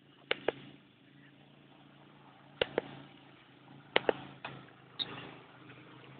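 A handful of sharp clicks or knocks, mostly in quick pairs, spread through a faint steady low hum.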